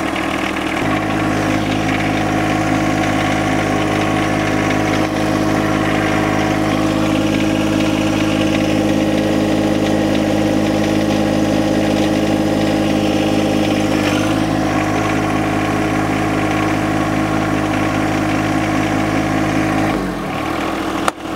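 John Deere subcompact tractor's diesel engine running steadily while the front loader is worked. The engine note steps up about a second in and drops lower near the end.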